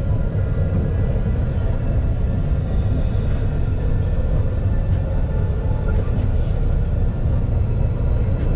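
Alstom Citadis low-floor tram running steadily between stops, heard from on board: an even low rumble of wheels on rail with a faint steady whine from the drive above it.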